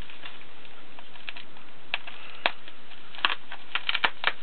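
Plastic bag wrapping crinkling and crackling as a knife cuts it open, a scatter of irregular sharp clicks that come thicker near the end.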